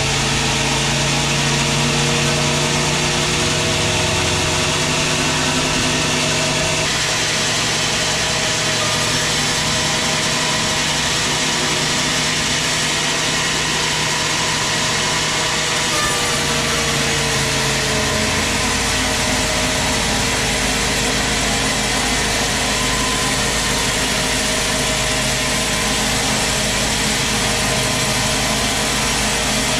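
Large band sawmill running and cutting through a big teak log: a loud, steady machine noise of blade and motor with a humming tone that shifts about a quarter of the way in and fades out a little past halfway.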